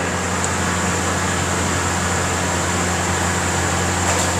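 Steady mechanical drone: a low hum under an even hiss, with a faint high whine, unchanging.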